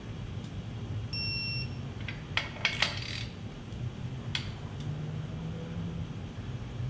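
Electronic torque wrench giving one high, steady beep about half a second long about a second in, the signal that a Ford 289 main bearing cap bolt has reached its final 65 ft-lb torque. A few sharp clicks of the wrench and ratchet follow as it is moved to the next bolt, over a steady low shop hum.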